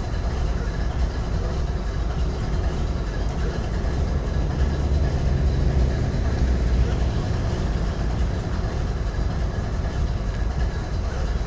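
GE ES40DC diesel-electric locomotive idling: its V12 GEVO diesel engine runs with a steady low rumble that grows a little louder around the middle.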